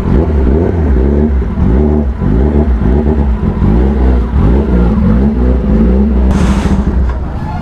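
Motorcycle engines revving at low speed, the pitch rising and falling again and again over a steady low rumble, with a short hiss about six seconds in.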